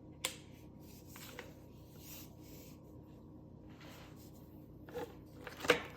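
Hands handling an unboxed product and its packaging: rubbing and sliding noises with a few light clicks, and a sharper knock near the end.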